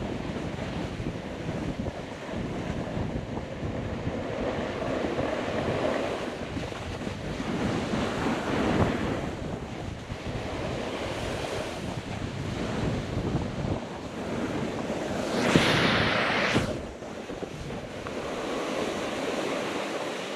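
Snowboard base and edges sliding and carving through slushy spring snow, a continuous swelling rush mixed with wind buffeting the microphone. About three-quarters of the way through, one louder, hissier scrape of slush comes from a hard turn.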